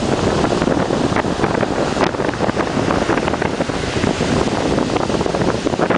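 Wind buffeting the microphone over the steady rush of breaking ocean surf.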